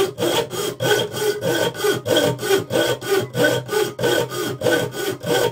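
Homemade jeweler's saw cutting through the steel of a used table saw blade: a regular rasping stroke about three or four times a second, over a steady low hum.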